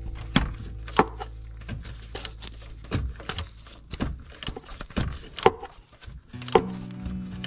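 A socket ratchet working the sump plug loose: sharp clicks and knocks at irregular spacing, about one or two a second, over background music with held chords.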